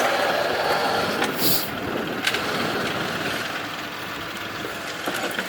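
Kubota tractor's diesel engine running steadily while it works its forks under a heavy rock, with a few sharp knocks and clanks, one about a second and a half in, one past two seconds, and more near the end.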